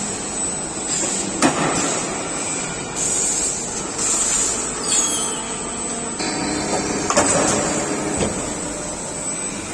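Factory machinery on an electric kettle production line, running steadily. Several sharp metallic knocks and a couple of short hissing spells come through it.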